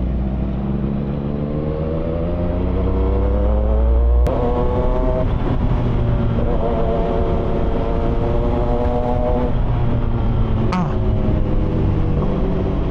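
CFMOTO 675SR-R's three-cylinder engine pulling hard, its pitch rising through the revs. It breaks with a sharp click about four seconds in and again near eleven seconds, then climbs again, over a steady rush of wind noise.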